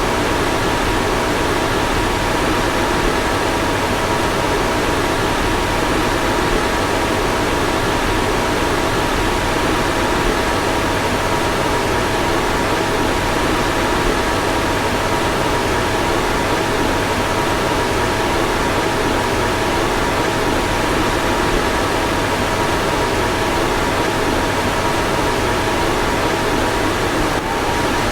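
Car fan blowing steadily: an even rush of air with a faint steady whine running through it.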